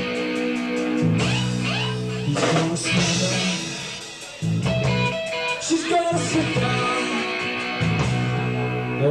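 Live rock band playing a loud instrumental passage: guitars and drums with cymbal crashes, with a short lull in the low notes about halfway through before the band comes back in.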